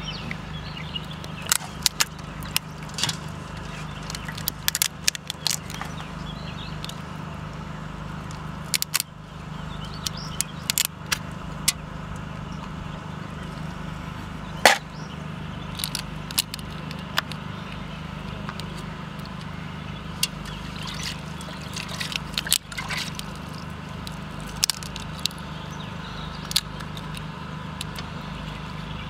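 Cooked lobster tails being cracked and peeled by hand: scattered sharp cracks and clicks of breaking shell over a steady low hum.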